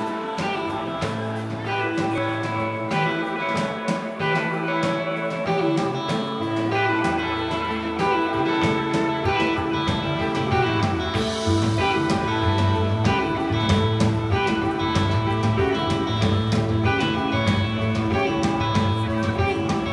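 Live rock band playing, with electric guitars over drums and bass; the low end grows fuller about seven seconds in.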